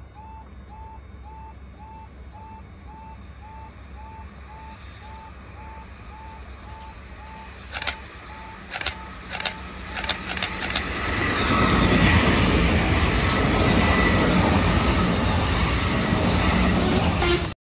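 A level crossing warning alarm repeats a short yelping tone two or three times a second and fades out. A few sharp clicks follow. Then a Merseyrail Class 507 electric multiple unit passes close at speed, a loud rolling rumble of wheels on rail with a faint steady whine, which cuts off abruptly near the end.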